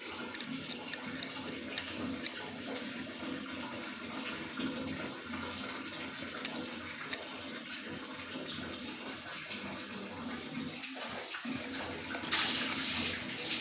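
A sewing-machine motor rigged as a grinder, running with a steady hiss and a faint hum. About twelve seconds in the hiss gets louder and brighter.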